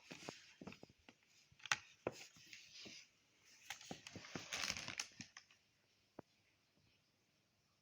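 Faint handling noises: rustling and crinkling with scattered clicks and knocks for about five seconds, then near quiet apart from one click about six seconds in. No motor is running.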